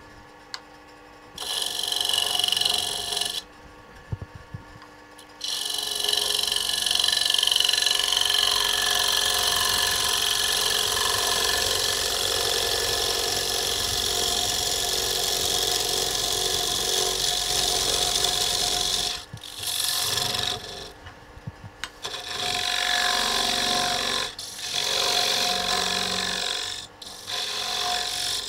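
Turning tool cutting a spinning maple blank on a wood lathe, making a steady cutting noise in passes: a short one early, a long one of about thirteen seconds, then several short ones near the end. Between the cuts the lathe's steady motor hum is heard.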